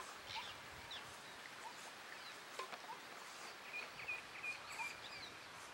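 Birds calling with short chirps and quick pitch glides, with a rapid run of repeated high notes around four seconds in. A single sharp click is heard near the middle.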